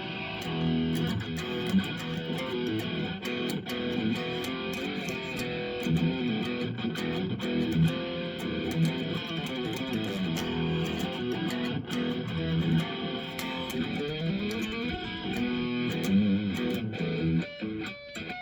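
2005 Epiphone Les Paul electric guitar played continuously through a Marshall Code 25 amp, a run of moving notes and strums that thins out briefly near the end.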